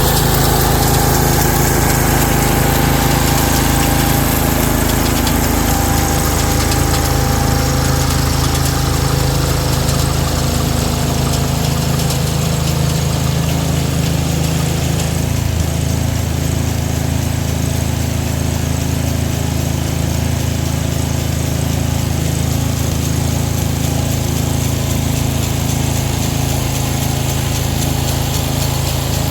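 Small gasoline engine of a Ryan GreensAire walk-behind aerator running steadily, turning a little quieter about twelve seconds in.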